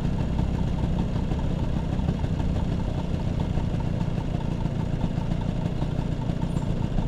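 Vespa P150S scooter's single-cylinder two-stroke engine running steadily at idle.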